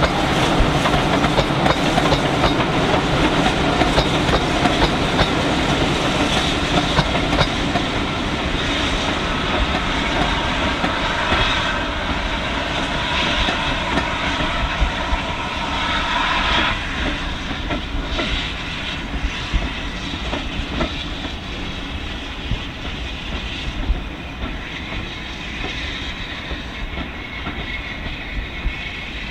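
Double-headed steam train, L&YR locomotives 51456 and 52322 hauling a rake of coaches, running past, with the coach wheels clattering over the rail joints. The sound grows steadily fainter as the train draws away.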